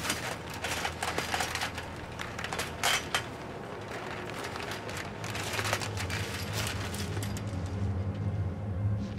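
Irregular clicks, rattles and rustles through most of the stretch, with a low steady hum building up over the second half.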